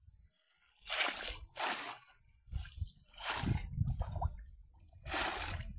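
Splashing in shallow muddy water as bamboo polo fish traps are plunged down and lifted by people wading, with about five separate splashes and sloshing between them.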